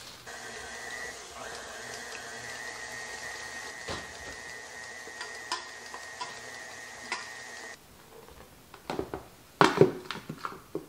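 Tilt-head stand mixer motor running steadily with a high whine while it beats cookie dough, with a few ticks against the bowl, then switched off about three-quarters of the way through. Loud clanks of the metal bowl and paddle follow.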